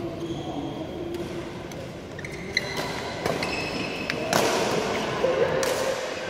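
Badminton rally: sharp racket strikes on the shuttlecock and short squeaks of shoes on the court mat, mostly in the second half, with voices in the background.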